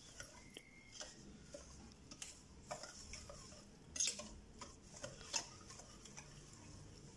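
Wire whisk stirring a thick semolina batter in a bowl by hand: faint, irregular clicks and scrapes as the wires strike the bowl, the loudest about four seconds in.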